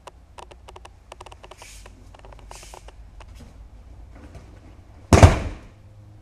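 Judoka thrown onto the tatami in a breakfall: one loud, heavy slap and thud about five seconds in, fading quickly. Before it, a few faint taps and rustles as the two take their grips.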